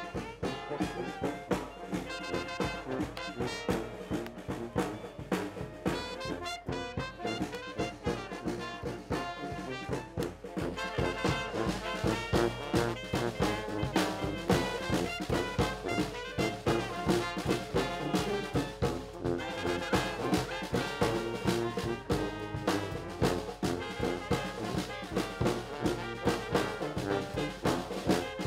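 Brass street band playing live: sousaphones, trombone, saxophones and clarinets over a steady marching bass-drum beat. The band gets louder about eleven seconds in.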